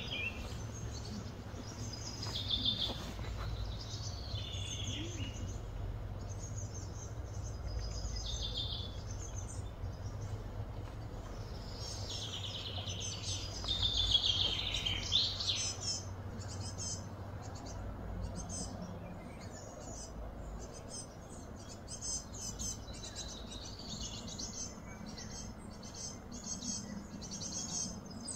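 Birds chirping and trilling, many short calls one after another and a busier run about halfway through, over a steady low hum of background noise.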